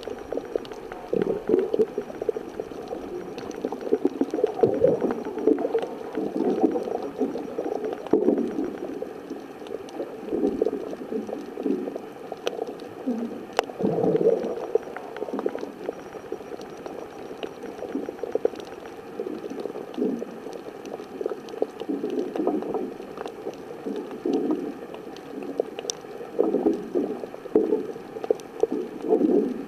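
Muffled underwater water noise picked up by a waterproof camera's microphone while snorkeling: irregular gurgling, sloshing swells, with a few sharp clicks now and then.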